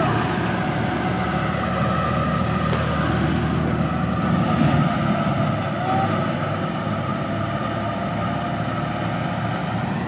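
Wheat thresher running steadily as wheat is fed in, a dense, even mechanical drone with a faint steady whine.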